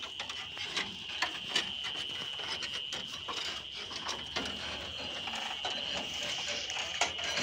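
Irregular metallic clicks and clanks of hand tools at work on a wheat thresher's wheel and frame, over a steady high-pitched drone.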